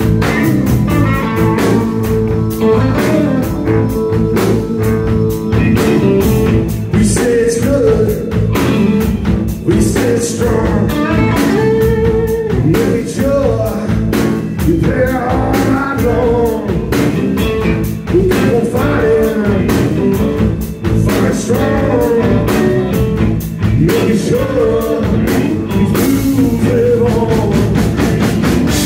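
Live blues-rock band playing: two electric guitars, electric bass and a Tama Star walnut drum kit with a Starphonic snare, keeping a steady beat.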